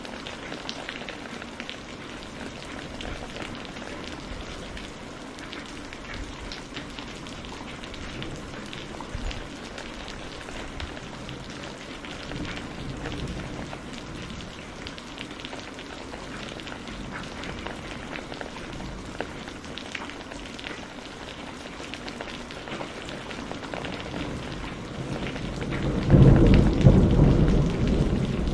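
Steady rain falling, with small crackles through it; a loud low rumble of thunder builds about 25 seconds in and peaks near the end.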